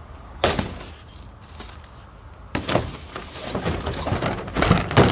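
Cardboard-wrapped roll of white plastic sign sheet springing open once its wrapping is slit: a sudden crack of cardboard about half a second in, then, about two and a half seconds in, the roll bursts loose with a long rush of rustling cardboard and sheet slapping and scraping on gravel, loudest near the end. The roll is under tension and pops open when cut.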